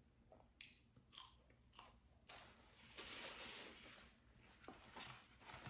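A person quietly biting and chewing crunchy fried fast food close to the microphone: a few sharp crunches in the first two seconds, then a stretch of denser crunching.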